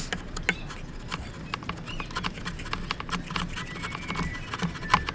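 Hand chisel cutting into hardwood: an irregular string of sharp clicks and knocks as the steel blade chops and pares chips out of the joint. The loudest knock comes near the end.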